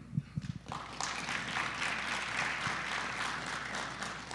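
Audience applauding, starting about a second in and tapering off near the end.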